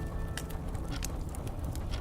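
Wood fire in a fireplace crackling: irregular sharp pops over a low, steady rumble.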